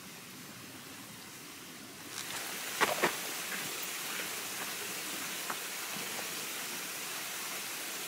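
A creek rushing, a steady hiss that gets louder about two seconds in. Two sharp footfalls on the trail come near three seconds.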